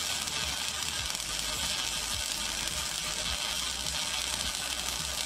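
Arc welder running a bead around a sprocket hub to join it to a chain sprocket: a steady crackling arc.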